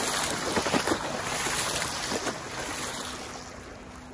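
Boat wake washing and splashing against a concrete river embankment wall, gradually growing quieter as the waves settle.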